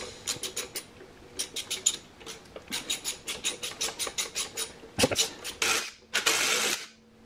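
Socket ratchet clicking rapidly in quick runs as a bolt on a tractor's housing cover is turned. Near the end a cordless impact driver runs for just over a second.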